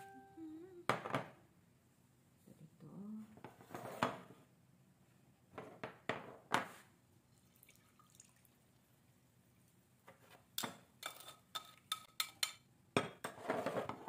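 Glass bakeware clinking and knocking on the counter while pan drippings are poured from a glass baking dish into a small glass bowl, with a quick run of clicks of metal tongs against the glass dish near the end.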